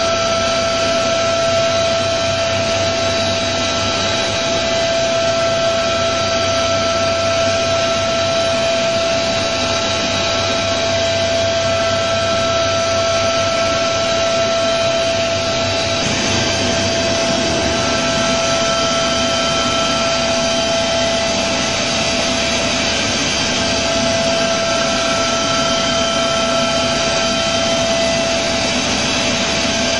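Okuma MU-500 five-axis CNC machining center milling a metal part: a steady high whine from the spindle and cutter over a constant hiss, with some fainter upper tones fading in and out as the tool and table move.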